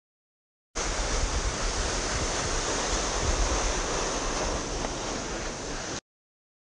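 Plastic sled being towed over rough, skate-scarred ice, with wind on the microphone: a steady rushing hiss over a low rumble. It starts abruptly about a second in and cuts off suddenly near the end.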